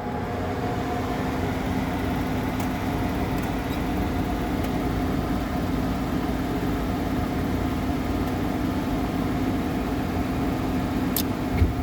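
Miller furnace's gun-type burner firing up and running with a steady, even roar. A single sharp click near the end.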